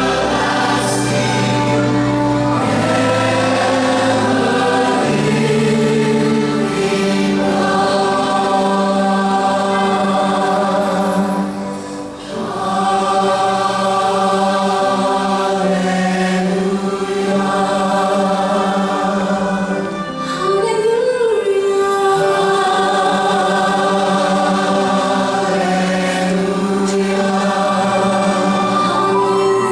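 Large choir singing sustained chords with orchestral accompaniment, a gospel-style Christmas piece, with two brief breaks between phrases.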